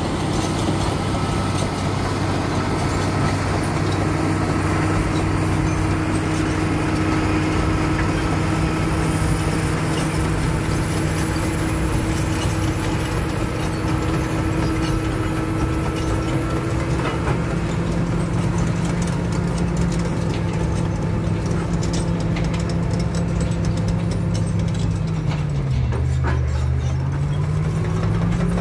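Caterpillar crawler bulldozer's diesel engine running steadily as the machine works. Near the end its pitch dips briefly and recovers.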